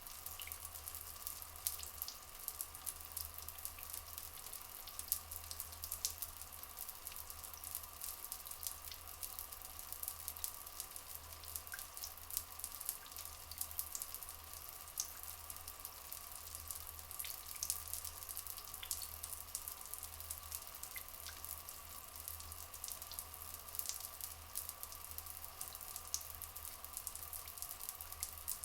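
Water trickling and dripping in a steady, dense patter of small splashes, with a faint steady drone underneath.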